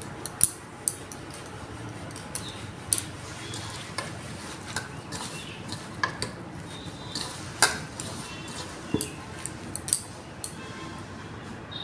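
Hand mixing moist sattu stuffing in a stainless steel bowl: irregular light clicks and taps as fingers knock against the steel.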